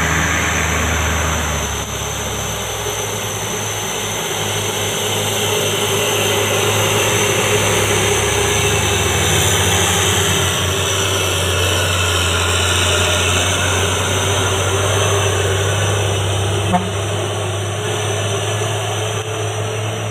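Diesel engine of a loaded Isuzu six-wheel cargo truck running steadily as it drives past, growing louder as it comes close and easing off as it moves away, with a short click near the end.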